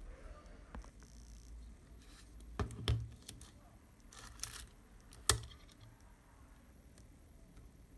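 A few sharp mechanical clicks and knocks from handling a stripped-down Zeiss Contarex camera body on a work mat, with a brief rustle; the sharpest click comes about five seconds in.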